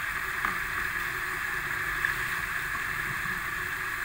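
Spice-paste liquid boiling in a wok with palm sugar stirred in, a steady bubbling hiss. Two light clicks come about half a second and two seconds in.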